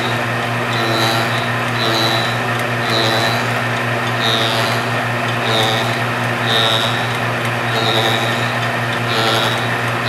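Belt-driven fly cutter on a rose engine ornamental lathe spinning and cutting into ash wood, over a steady motor hum. A higher note swells and fades about once a second.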